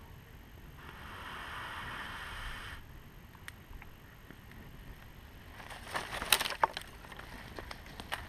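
Dry twigs and small wood cracking and snapping, a quick flurry of sharp cracks about six seconds in followed by scattered ticks. Earlier there is a steady hiss lasting about two seconds.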